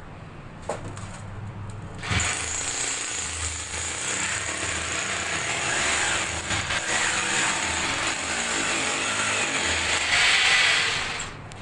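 Electric hammer drill boring into a tiled wall: a steady rough run starting about two seconds in, growing louder near the end and then cutting off.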